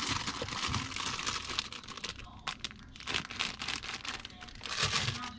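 Clear plastic bag of fresh ramen noodles crinkling and rustling in uneven bursts as it is grabbed and pulled off a refrigerator shelf, louder near the end.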